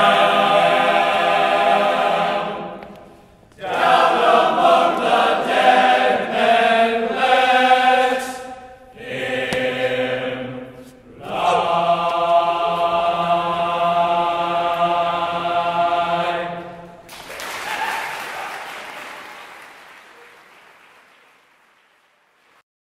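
Men's choir of tenor and bass voices singing a cappella, phrases broken by short breaths, ending on a long held chord that stops sharply. A burst of noise follows and fades away over a few seconds.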